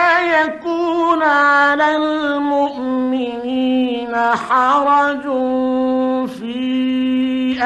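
A man chanting Quran recitation in the melodic mujawwad style, holding long ornamented notes with a few brief breaks.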